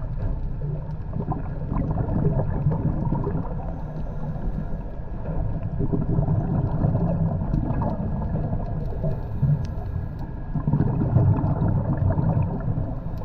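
Muffled underwater water noise picked up by a submerged camera: a low rumbling and gurgling that swells about every four to five seconds.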